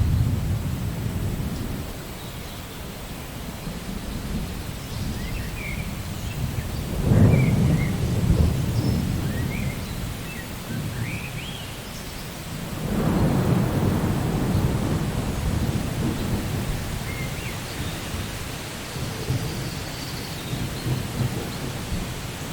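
Steady rain with rolling thunder: two louder low rumbles swell about seven and thirteen seconds in and fade slowly.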